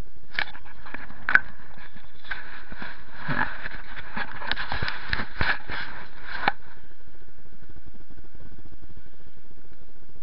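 Footsteps crunching on snow-covered paving, irregular steps that stop about six and a half seconds in, over a steady hiss.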